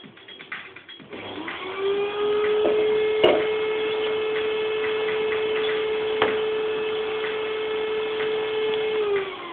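A small electric motor spins up about a second in, runs with a steady hum, and winds down near the end. Two sharp knocks come while it runs.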